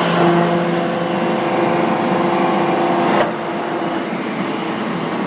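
Baling machine running: a steady, loud machine sound with a pitched hum that cuts off abruptly about three seconds in, leaving a plainer running noise.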